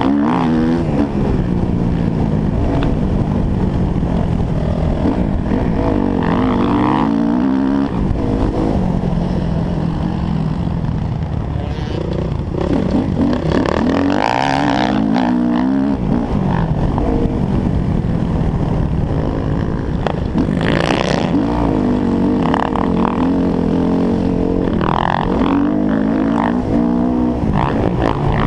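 Motocross bike engine heard from on board, revving hard and falling away again and again as it accelerates through the gears and backs off for jumps and turns, over a constant low rumble.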